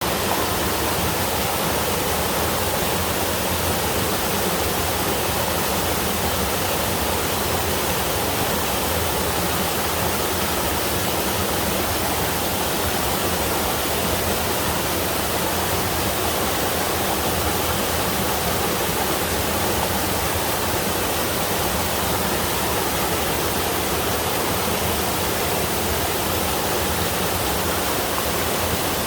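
Steady rush of a three-tier mountain waterfall, water pouring and splashing over the rock steps.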